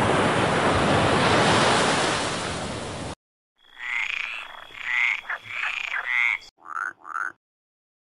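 A steady rush of sea-water noise that cuts off about three seconds in, then a frog croaking in a series of about six short calls.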